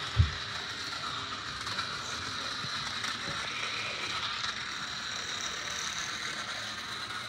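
Small battery-powered toy police car running along a plastic track, its motor giving a steady whirring, rattling buzz with a thin high whine. One heavy footstep thumps on the wooden floor right at the start.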